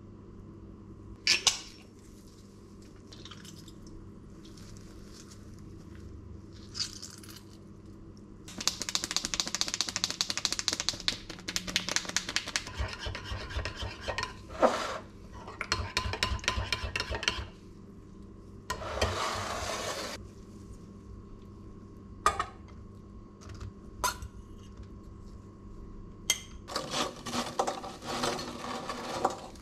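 A metal spoon stirring a creamy dressing in a ceramic bowl, clinking rapidly against the bowl for several seconds at a time. Near the end, croutons are tipped from an air fryer basket into a stainless steel salad bowl with a dense clatter. A steady low hum sits underneath.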